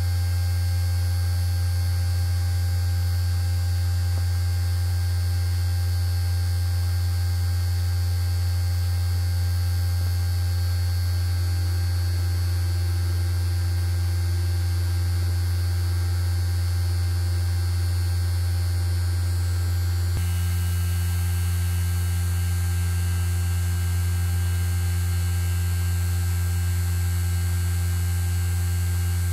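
Steady low electrical hum with faint higher whining tones from the magnetic levitation rig that holds a small magnet cube floating between two cylindrical drivers. About twenty seconds in there is a small click and the higher tones shift.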